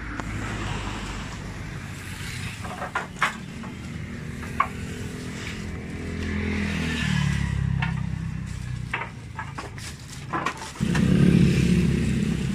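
An engine running steadily, shifting in pitch partway through and growing louder near the end. Over it come a few sharp clacks of wooden boards knocking together as they are sorted on a rack.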